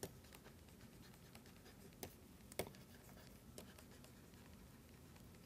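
Near silence with a few faint taps of a stylus on a writing tablet as words are written.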